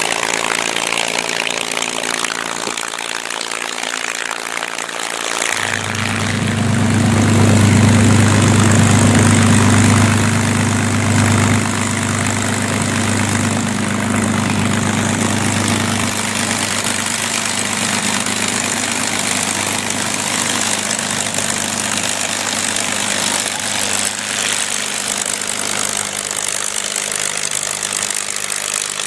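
P-51D Mustang's Packard Merlin V-12 engine being started: the propeller is turned over for about five and a half seconds, then the engine catches suddenly. It runs at its loudest for about five seconds, then drops back to a steady idle.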